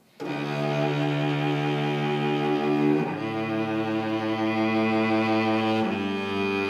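Cello playing long, sustained bowed notes. It enters suddenly out of near silence just after the start, and the note changes about three seconds in and again near the end.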